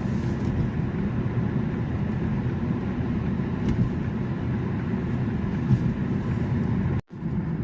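Steady low rumble of road and engine noise inside a moving car's cabin. It cuts out abruptly for a split second near the end and then resumes unchanged.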